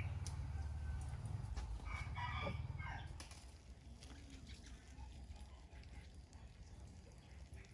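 A rooster crowing once, about two seconds in, over a low rumble that fades out about three seconds in.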